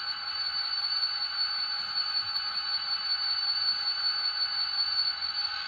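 Steady high-pitched whine over a hiss: two held tones that don't change, with no bass.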